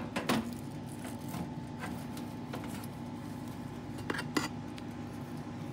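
Light clicks and knocks of a baking tray being set on a metal oven rack and handled, over a steady hum.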